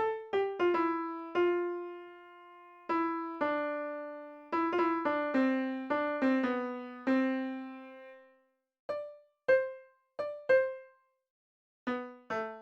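Background piano music: a slow melody of single struck notes that ring and fade away, with short pauses between phrases.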